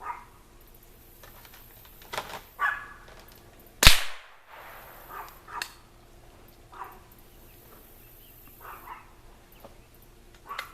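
A single .22 LR rifle shot, a sharp crack about four seconds in, with a few quieter short knocks and faint calls around it.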